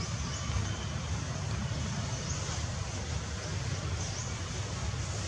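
Steady outdoor background rumble and hiss, with a few faint, short high chirps about every two seconds.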